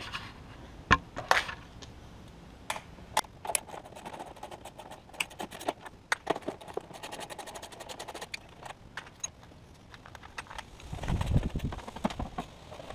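A hand ratchet clicking in quick runs and metal tools clinking while the floorboard cover bolts of a Honda Ruckus scooter are undone, with a few dull knocks and handling noise near the end.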